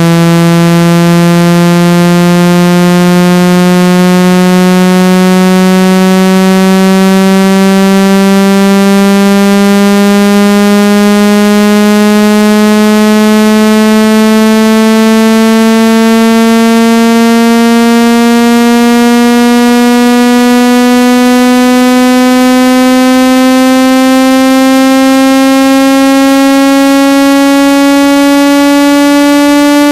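Loud synthesized speaker-cleaning tone for driving water out of a phone or earphone speaker: one buzzy, overtone-rich note sliding slowly and steadily upward in pitch.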